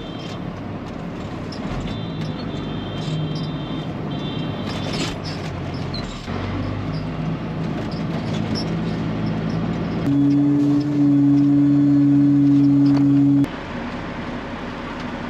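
Peterbilt 379 truck's diesel engine running steadily. In the last third, a much louder steady low tone sounds for about three seconds, starting and stopping abruptly.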